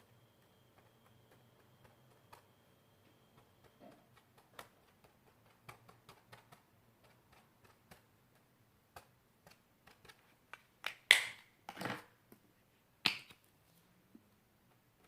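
Hands working green slime: scattered small sticky clicks that come more often as it goes on, then a few louder sharp pops near the end.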